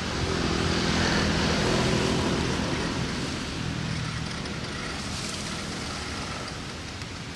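Electric motor and geared drivetrain of a remote-control toy truck running as it creeps forward over dirt: a low hum under a hiss, swelling a second or two in and then slowly fading.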